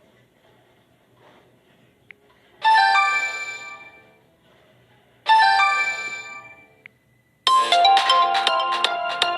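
LG Aristo 4+ smartphone playing its sounds through its speaker: a bright bell-like notification chime sounds twice, each ringing out and fading over about a second and a half. About seven and a half seconds in, a fast melodic ringtone of quick repeated notes starts.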